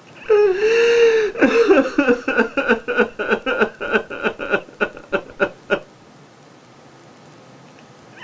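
A man sobbing: a drawn-out wail, then a quick run of gasping sobs, about three or four a second, that stops about two seconds before the end.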